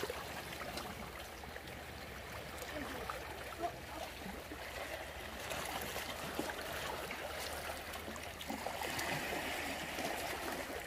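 Shallow sea water washing steadily around the shrimp netters, with one brief sharp click about three and a half seconds in.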